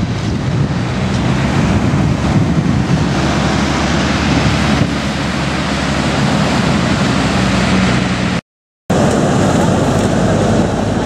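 Wind blowing on the microphone over surf breaking on a pebble beach, a steady loud noise heaviest in the low end. It drops out to silence for a split second about eight seconds in.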